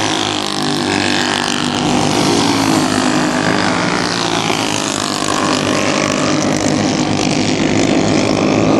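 Several racing engines running together at speed, their pitch rising and falling.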